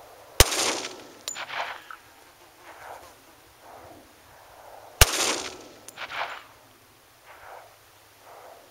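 Two shots from a Glock 20 pistol in 10mm Auto, about four and a half seconds apart, each followed by echoes rolling back.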